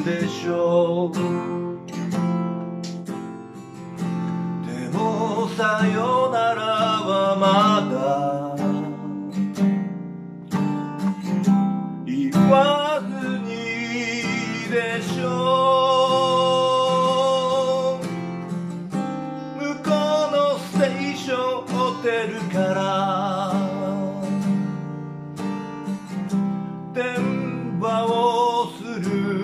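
A man singing to his own strummed Asturias acoustic guitar, with a long held note about halfway through.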